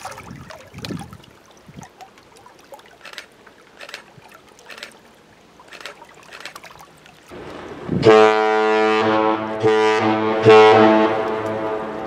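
A Great Lakes freighter's ship horn sounds one long blast of about three seconds at one steady pitch, starting about eight seconds in. Before the blast there is only light wind buffeting the microphone.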